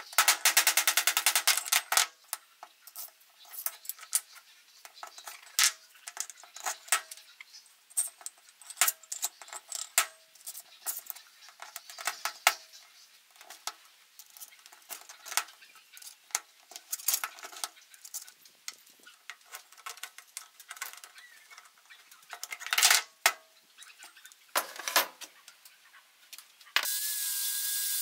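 A hammer tapping quickly on a threaded metal lamp rod set in a brass base for about two seconds, then scattered metallic clicks and wooden knocks as lamp parts are fitted and handled on a workbench. About a second before the end a handheld power sander starts and runs steadily.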